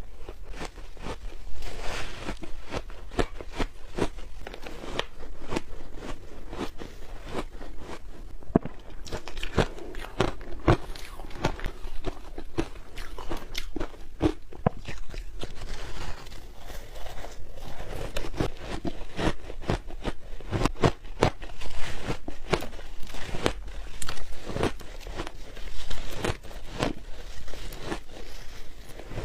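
Close-up crunching and biting of frozen ice, with dense irregular crackles and crunches as it is chewed.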